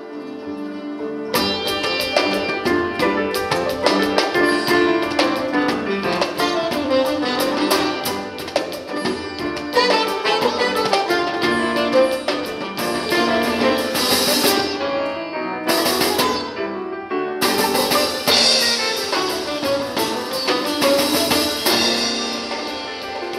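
Live ethno-jazz band playing, with saxophone, sitar, double bass and hand percussion with cymbals. A held tone opens, then the percussion comes in with a dense rhythm about a second in.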